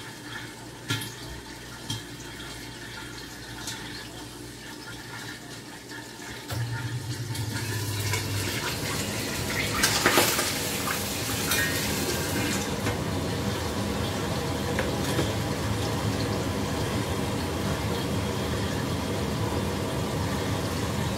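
Hot fat sizzling and spattering in a covered steel wok on a gas burner. The sizzle gets much louder about six seconds in, and a sharp metallic knock sounds about ten seconds in as the lid is lifted.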